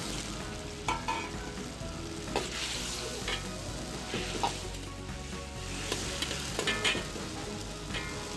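Chicken pieces and sauce sizzling in a steel wok while a metal ladle stirs them, scraping and clinking against the wok several times.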